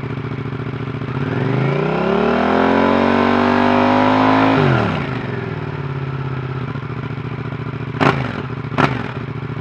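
Yamaha MT-07's parallel-twin engine idling through a Scorpion carbon slip-on exhaust with its baffle fitted. About a second in it revs up, holds the revs for a few seconds and drops back to idle, then two quick throttle blips near the end.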